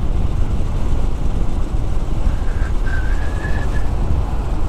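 Honda Grom's 125 cc air-cooled single-cylinder engine running steadily under way through a Two Brothers Racing S1R carbon full-system exhaust, mixed with wind buffeting on the bike-mounted microphone.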